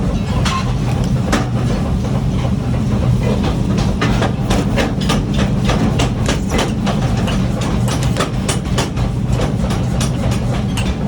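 Workshop machinery running with a steady low hum, under irregular sharp metal clinks and knocks, several a second at times.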